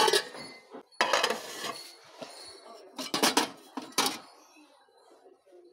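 Metal pots clanking against one another as they are lifted and handled from a stack, in four short bursts of clattering.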